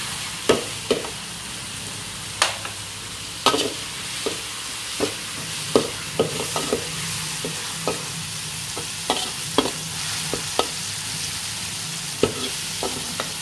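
Shallots, garlic and red chili sizzling in hot oil in a steel wok, the spice base being sautéed until fragrant. A metal spatula stirs them, scraping and clanking against the wok at irregular moments over the steady sizzle.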